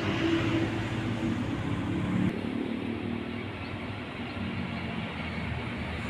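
Steady low hum of a motor vehicle engine, its pitch shifting about two seconds in.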